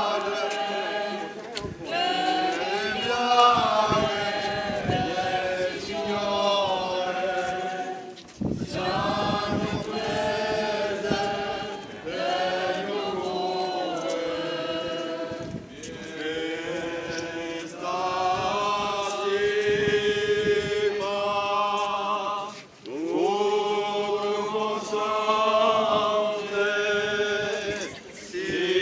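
Unaccompanied religious chant sung by a group of voices in long, slow held phrases, with a brief pause between phrases every seven seconds or so.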